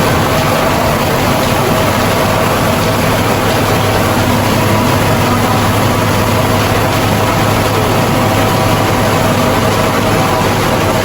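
Rice milling machine running steadily on a trial run: a loud, even mechanical drone with a constant hum.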